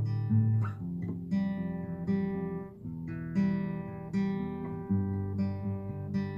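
Acoustic guitar strumming chords, fresh strokes about every half second to a second with the chords ringing on between them.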